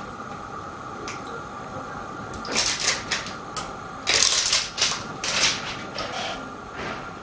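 Hands fitting plastic alignment-mold parts and an OLED film together: a run of clicks and rustles, in two bunches about two and a half and four seconds in.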